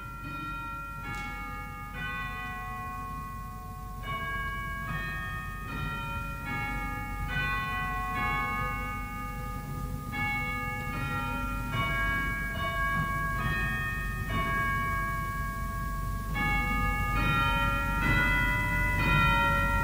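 Instrumental music in a bell-like sound, a slow melody in ringing chords that change about every half second to a second, growing gradually louder.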